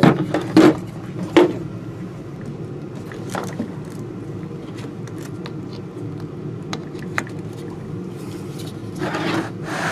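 Hard plastic clicks and knocks from handling a cordless drill battery charger and its wall plug adapter, three sharp ones in the first second and a half, then scattered light ticks and a longer rustle near the end, over a steady low background hum.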